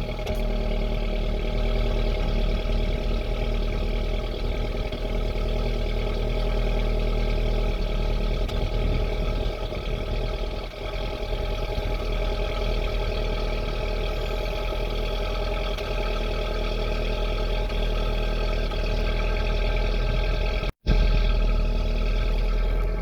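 Skoda Yeti 1.4 petrol engine idling cold, its even run broken now and then: it stumbles ('sneezes') when cold, the cold-running fault that the owner is recording.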